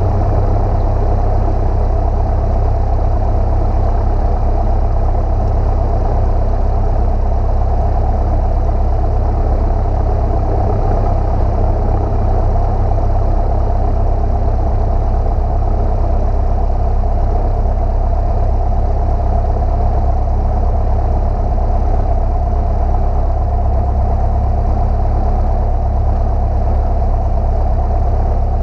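Light single-engine piston airplane's engine and propeller droning steadily in the cockpit, with no change in power.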